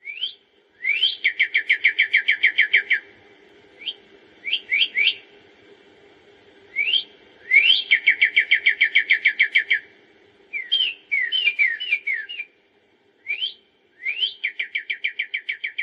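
A songbird singing in repeated phrases: a rising whistled note followed by a fast trill of short falling notes, about eight a second.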